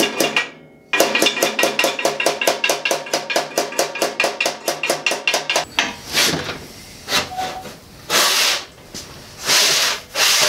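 A hammer tapping fast and evenly on sheet steel clamped in a sheet-metal brake, several ringing metallic taps a second, to help the bend along where the brake struggles in the centre. The tapping breaks off briefly about half a second in and stops after about five and a half seconds. Scraping and rubbing of the sheet metal against the brake follow.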